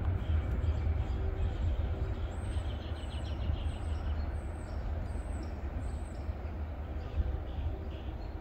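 Low rumble of a passing freight train fading slowly as it moves away. A bird chirps about six times in a row in the middle.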